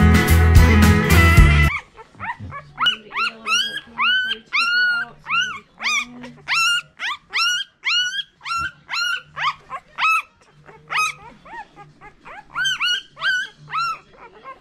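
Guitar music that cuts off suddenly about two seconds in, then very young American Bulldog puppies squealing in a string of short high cries, each rising and falling in pitch, about two to three a second.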